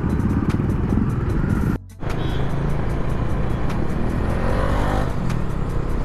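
Riding noise from a Bajaj Dominar 400 motorcycle: its engine running under a steady low rumble of wind and road. The sound drops out briefly about two seconds in, where the footage is cut.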